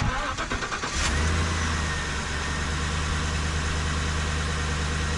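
Van engine cranking briefly on the starter, then firing about a second in and settling straight into a steady idle. It starts readily on the first try with its newly fitted mass air flow sensor.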